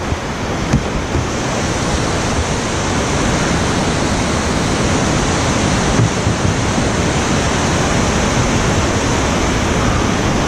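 Whitewater rushing down a creek slide: a steady, loud wash of water noise.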